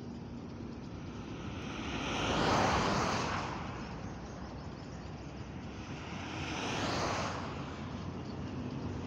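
Motorway traffic passing close by: two vehicles go past, each a whoosh of tyre and engine noise that swells and fades, the first, about two and a half seconds in, the louder. A steady traffic hum fills the gaps between them.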